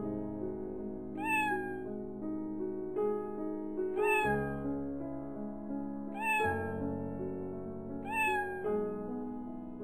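A cat meowing four times, each call a short glide up and back down, over slow background music with long held notes.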